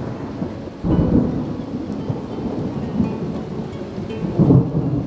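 Thunder rumbling over steady rain, swelling suddenly about a second in and loudest again near the end.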